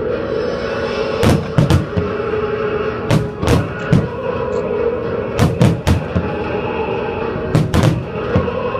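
Fireworks shells bursting in sharp bangs, mostly in pairs, every couple of seconds over steady background music.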